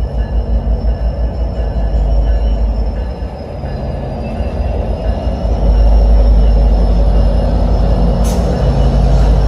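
GO Transit commuter train running on the rails: a continuous rumble that grows louder about six seconds in, with a thin, steady high-pitched whine over it.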